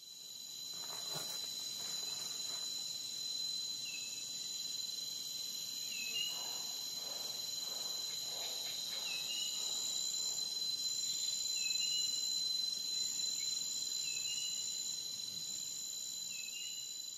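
A steady, high insect chorus trilling without a break, with a short chirp about every two to three seconds.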